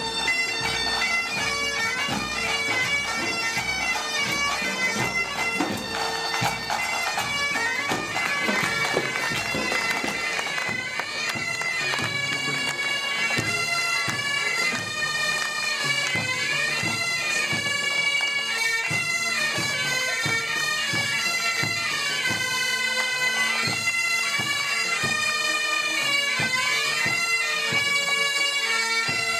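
Bagpipes of a marching pipe band playing a tune over a steady drone.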